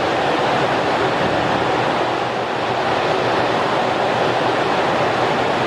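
Steady underwater rushing noise, an even wash of water sound with no separate breaths or bubble bursts standing out.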